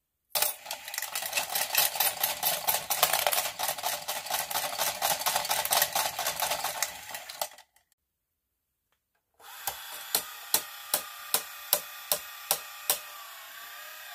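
Plastic gear mechanisms of battery-powered novelty coin banks running. A coin-eating dog bank makes dense rasping clicks for about seven seconds and stops. After a pause, a football-player bank makes regular clicks about twice a second over a faint motor whine as the player kicks the coin in.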